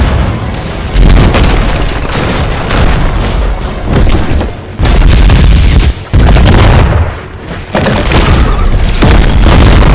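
Very loud, distorted booming sound with a heavy bass end and some music in it, coming in surges that drop out briefly several times, near the loudest the recording can go.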